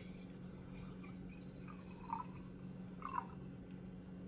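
Faint water drips into a glass, two soft drips about two and three seconds in, over a steady low hum.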